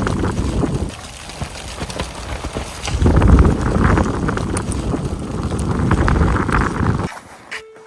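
Wind buffeting the microphone in loud gusts that swell and ease every few seconds, cutting off abruptly about seven seconds in.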